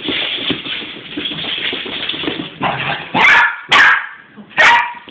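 A young Cairn terrier–West Highland terrier cross puppy barks three times, sharp and loud, in the second half, each bark a little over half a second apart.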